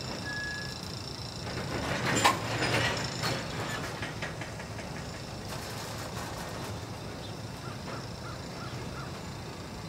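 Steady low rumble from a standing diesel freight train, with a brief loud noisy burst about two seconds in and five quick short chirps near the end.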